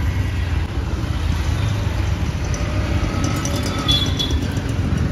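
Steady low rumble of street traffic, with faint thin tones about three to four seconds in.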